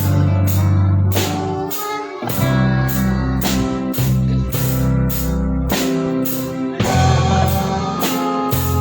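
Band playing a song: guitar chords over a sustained bass line, with a drum kit keeping a steady beat.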